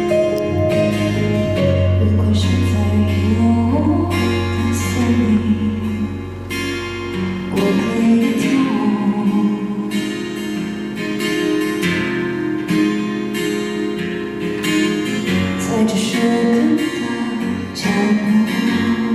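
Acoustic guitar playing with backing instruments in the instrumental part of a live folk-pop song, before the vocal comes in.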